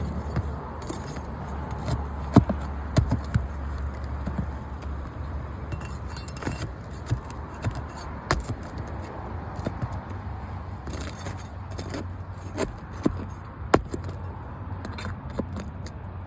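Irregular light clicks and clinks of small metal objects handled or knocked together, over a low steady hum.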